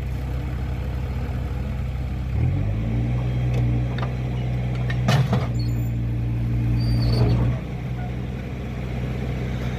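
Heavy diesel engine running, revving up about two and a half seconds in, holding the higher speed under load, then dropping back near the end; a sharp metallic knock about halfway through.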